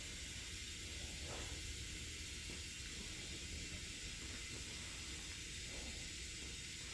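Steady hiss of background noise with no clear event, and two faint soft sounds about a second in and near the end.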